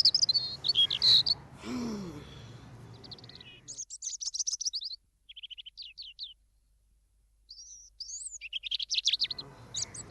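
Small birds chirping in quick twittering trills, several voices overlapping, with a brief lull in the middle before the chirping picks up again.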